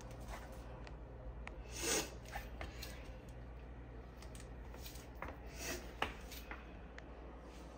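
Soft rustling and a few small clicks of a gift item and its packaging being handled close to the microphone, with the loudest swish about two seconds in and another near six seconds.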